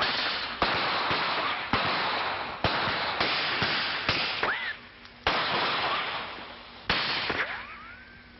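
Gunshots on an old film soundtrack: about eight shots spaced half a second to a second and a half apart, each dying away in a hissing echo. A rising ricochet whine follows two of them.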